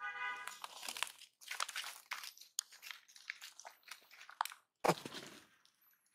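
A baby pig-tailed macaque gives a brief squeal, then dry leaves and ground litter crackle and crunch as the monkeys scuffle, with one louder thump about five seconds in.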